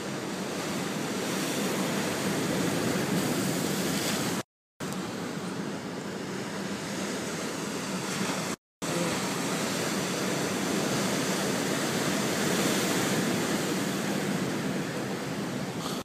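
Ocean waves breaking and washing over rocks below a seawall, a steady rushing surf, broken by two brief gaps of silence about four and a half and eight and a half seconds in.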